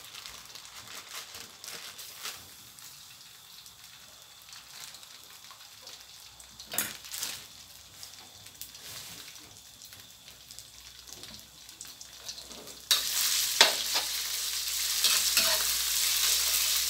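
Red curry paste and chopped garlic frying in oil in a wok: a faint sizzle at first, which turns suddenly much louder near the end as the paste is stirred, with the metal spatula clicking and scraping against the wok.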